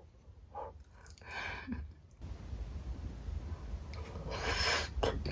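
Close-miked eating sounds from a person eating spicy chicken feet: short rubbing and mouth noises, with a longer, louder rustling noise about four seconds in.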